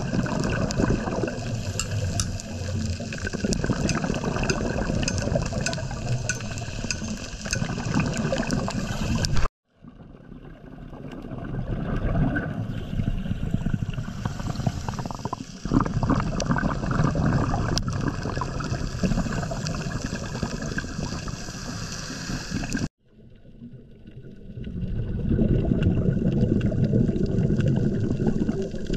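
Underwater ambience through a camera housing: muffled water noise with gurgling. It drops out abruptly twice at cuts and fades back in each time.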